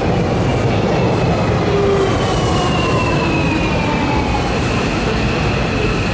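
Hanshin 5700 series 'Jet Car' electric train pulling into the platform: wheels rumbling on the rails under a traction-motor whine that falls slowly in pitch as the train slows.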